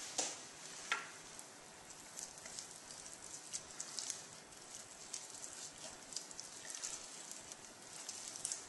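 Faint, wet crackling and small ticks of skin being peeled off a raw chicken drumstick by hand, with a light tap or two in the first second.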